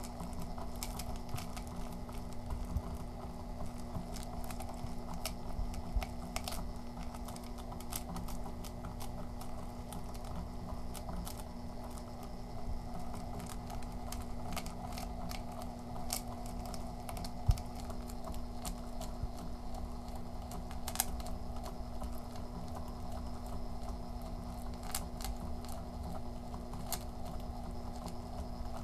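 Loop of metal ball chain in a kinetic sculpture clicking and rattling irregularly as it is pulled up by a sprocket wheel and falls in a heap onto a flat disc, over the drive motor's steady low hum. One sharper click a little past halfway.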